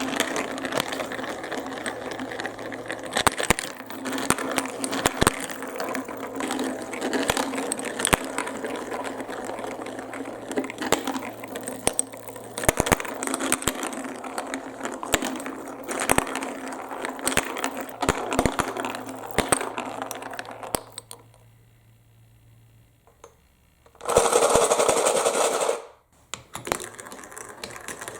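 Marbles clicking and rattling along a plastic block marble run over the steady hum of a small motor. Both stop for a few seconds, then a loud rushing sound lasts about two seconds, and the clatter starts again near the end.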